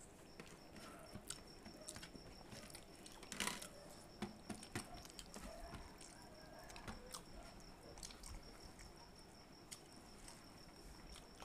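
Faint eating sounds: fingers working rice on steel thali plates, chewing and small mouth clicks, soft and scattered, the loudest about three and a half seconds in. Under them a faint steady high whine.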